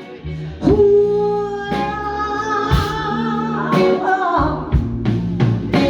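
Live band playing a slow soul-blues ballad: a long held melodic line over bass, with drum strikes about once a second.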